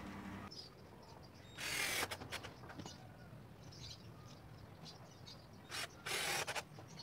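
Cordless drill run in short bursts, about two seconds in and again near the end, driving a screw into the edge of a plywood board; light clicks and rattles between.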